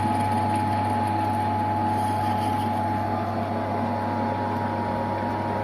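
Metal lathe running with its chuck spinning a motorcycle crankshaft half: a steady motor hum with a thin, constant whining tone above it.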